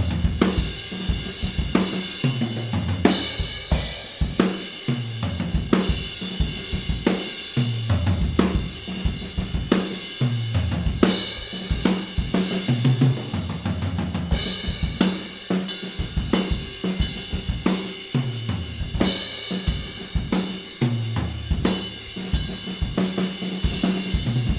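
Recorded acoustic drum kit playing a groove with repeated tom fills that run down from higher to lower toms, under steady cymbals. The toms are heard without their close microphones, which takes much of the attack off them.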